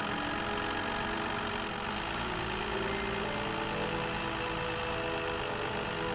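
Cartoon truck-engine sound effect running steadily as the tow truck tows the pickup along.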